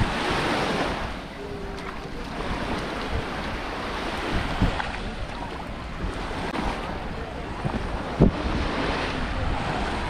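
Small waves washing onto a sandy shore, with wind on the microphone. A single brief knock near the end.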